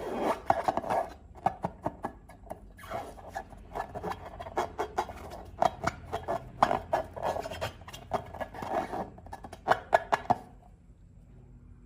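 Hands squishing and kneading slime: a dense run of sticky clicks and crackles with rubbing, which stops about ten and a half seconds in.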